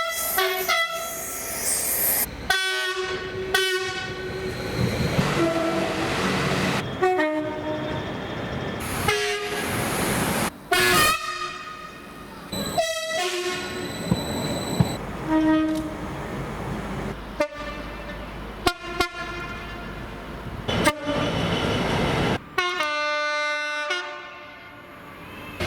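A montage of train horns sounding one after another: each horn chord is held briefly, then cut off abruptly by the next clip every one to three seconds. The noise of passing trains runs underneath.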